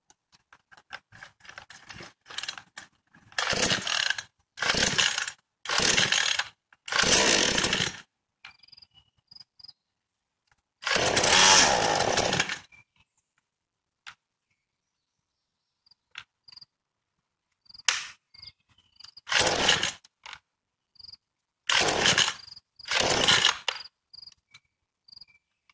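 DevonPro 22-inch 58cc two-stroke chainsaw being pull-started on choke for its first start: a series of short cranking pulls on the recoil starter, one somewhat longer burst about eleven seconds in, and the engine never settles into steady running.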